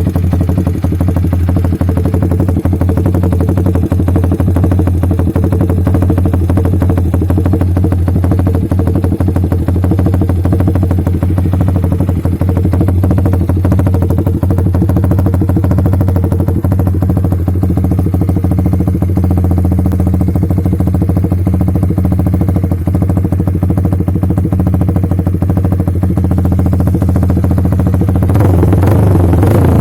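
Yamaha Vixion's single-cylinder four-stroke engine idling steadily through an SC-Project aftermarket exhaust, getting louder and fuller near the end as the throttle opens.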